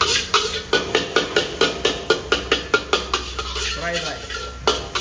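Metal spatula scraping and knocking against a steel wok while stir-scrambling eggs: a rapid clatter of about four strikes a second.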